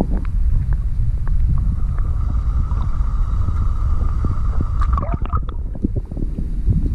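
Muffled underwater rumble and sloshing heard through a submerged camera, with scattered small clicks. A steady hum comes in about two seconds in and stops a little after five seconds.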